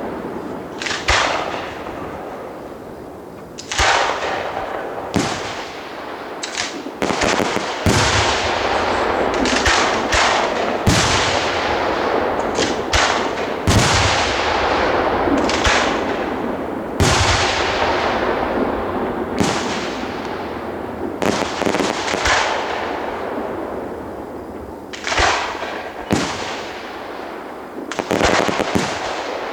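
Aerial fireworks display: shells bursting overhead one after another, each loud bang followed by a long crackling, hissing fall-off.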